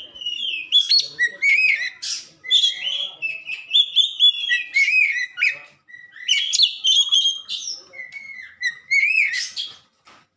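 Oriental magpie-robin (kacer) singing a rapid, varied song of clear whistles and sliding notes, with a short break about six seconds in.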